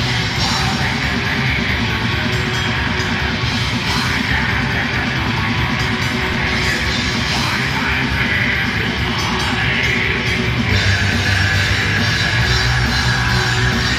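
Heavy metal band playing live: distorted electric guitars and bass over drums, with a yelled vocal, heard loud from the crowd.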